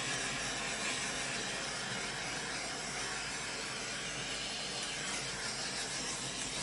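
Handheld gas torch flame hissing steadily as it is passed over freshly poured acrylic paint to pop the air bubbles.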